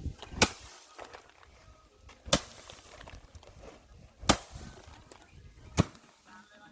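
Four sharp chopping strikes, spaced about one every one and a half to two seconds.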